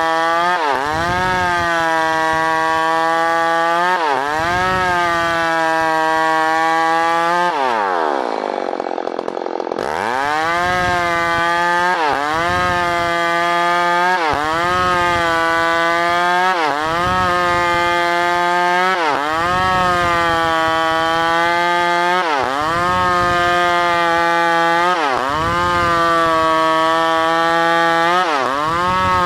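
New West PRO 888 two-stroke chainsaw sawing wood at high revs. The engine note dips briefly every two to three seconds. About eight seconds in it falls deeply, then climbs back to full revs about two seconds later.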